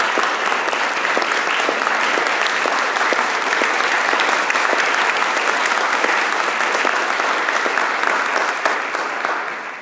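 Audience applauding, a dense steady clatter of clapping that dies away quickly near the end.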